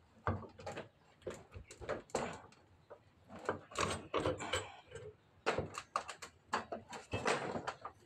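Irregular metal clicks, knocks and scraping as the end cover of a disassembled hydraulic pump is worked loose and lifted off its housing.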